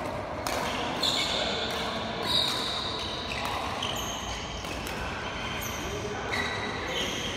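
Badminton rally: sharp strikes of rackets on the shuttlecock and players' footsteps on the court, with short high-pitched shoe squeaks on the court mat, echoing in a large hall.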